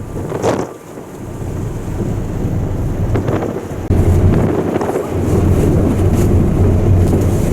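Wind buffeting the microphone over a low rumble from the icebreaker's engine. The rumble steps up louder about four seconds in and then holds steady.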